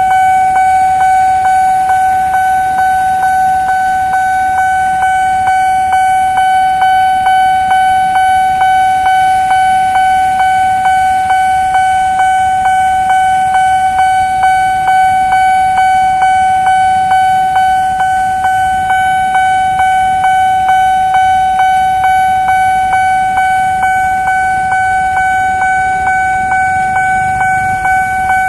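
Nippon Signal level-crossing alarm ringing while the crossing is closed: one pitched electronic ding repeated steadily about two to three times a second. A low rumble builds near the end.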